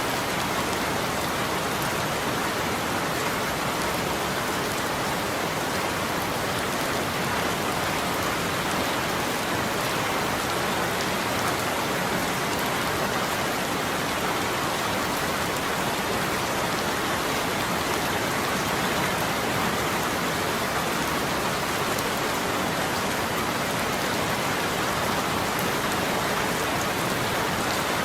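Steady rain falling, an even continuous hiss with faint individual drop ticks.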